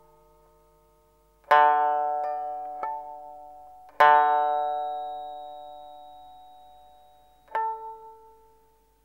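Slow, sparse film-score music on a plucked string instrument: four struck notes or chords, each ringing out and fading slowly. A loud one comes about one and a half seconds in, a lighter one soon after, another loud one about four seconds in, and a softer one near the end.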